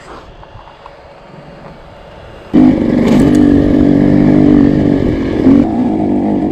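Two-stroke dirt bike engine running quietly, then suddenly opened up about two and a half seconds in and held at high revs with a steady, loud note under throttle. The note eases a little near the end.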